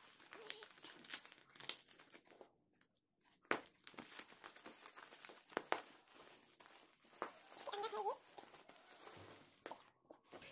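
Plastic parcel wrapping crinkling and tearing as it is pulled open by hand, in scattered faint crackles with a short pause about two and a half seconds in.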